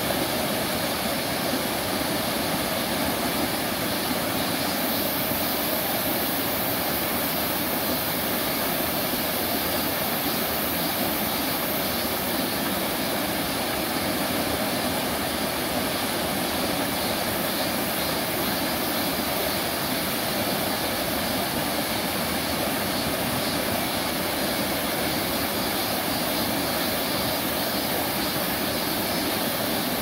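Mountain stream rushing steadily over rocks in a small cascade, a continuous even rush of water.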